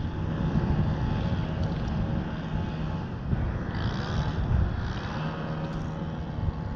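Low wind rumble on the microphone, with a low steady hum joining about four seconds in.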